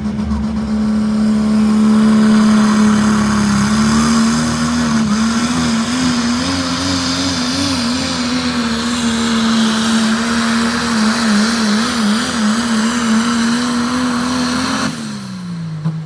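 Pro Stock diesel pulling truck's engine at full throttle under load while pulling the sled: a loud, high, steady note that wavers in pitch at times. About 15 seconds in the driver lets off and the note falls away quickly.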